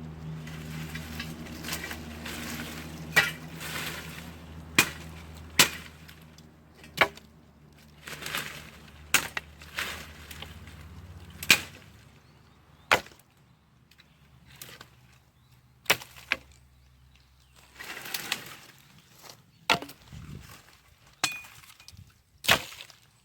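Dry wood being broken up by hand: a dozen or so sharp cracks and snaps at irregular intervals, with rustling between them.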